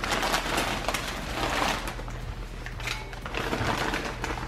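Crackling rustle of Lay's potato chip bags being handled, in two spells with a short lull about two seconds in.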